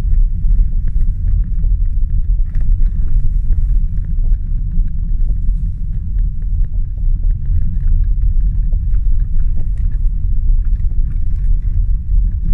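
A steady, loud low rumble with faint scattered ticks and clicks over it.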